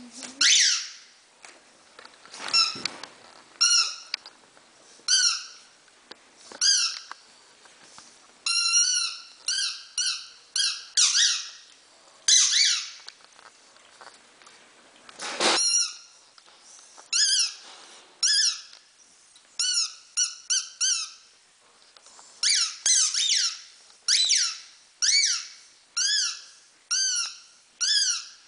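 Rubber squeaky toy squeezed over and over: many short, high squeaks at a steady pitch, often in quick pairs and runs.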